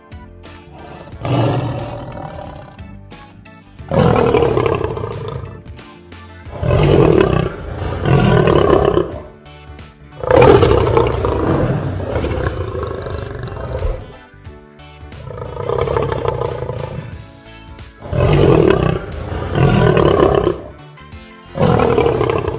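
A male lion roaring repeatedly: a series of long, loud roars, each lasting a second or two, with short pauses between them.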